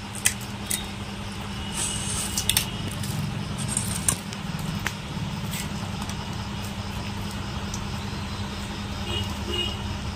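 Scattered light clicks and crackles as fuchka shells are cracked open by hand and handled over steel bowls, most of them in the first few seconds, over a steady low hum.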